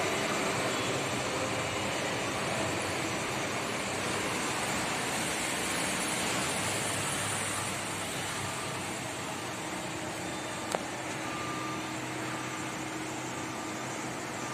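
Steady outdoor urban background noise, mostly the hum of road traffic, with a single sharp click about eleven seconds in.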